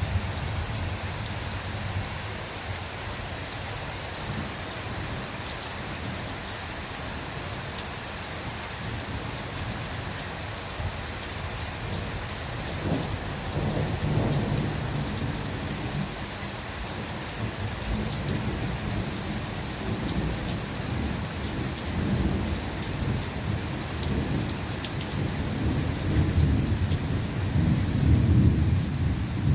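Steady rain falling in a forest, with low thunder rumbling about halfway through and swelling again near the end.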